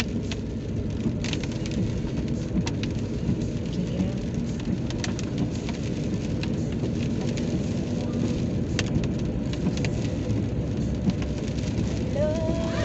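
Rain hitting a moving car's roof and windshield, scattered sharp drop hits over a steady road and engine rumble in the cabin. A pitched voice starts briefly near the end.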